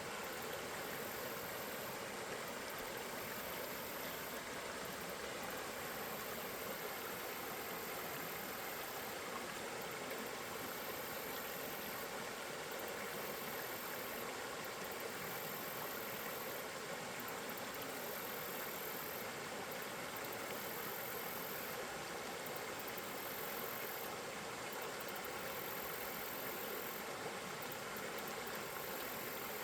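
Steady rush of river water flowing, an even noise that does not change.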